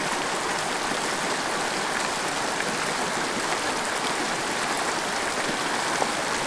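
Shallow mountain stream rushing steadily over rocks and through a riffle: an even, unbroken water noise.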